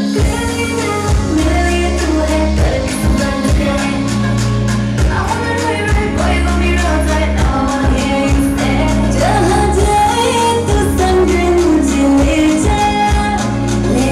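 Recorded Indian pop song with singing over a steady beat and heavy bass.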